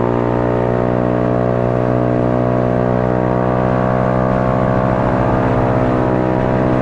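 Motorcycle engine running at a steady speed on an uphill climb, its note holding nearly constant pitch with a slight dip early on.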